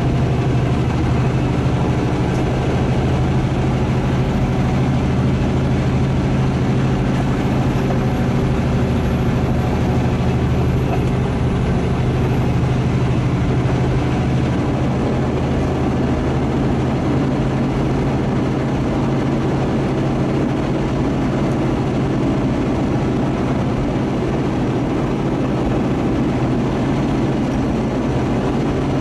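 Big truck's diesel engine running steadily, heard from inside the cab as a continuous low drone with road noise over it.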